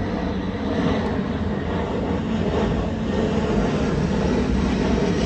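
Norfolk Southern diesel freight train approaching out of sight, heard as a low steady rumble that grows a little louder after about a second.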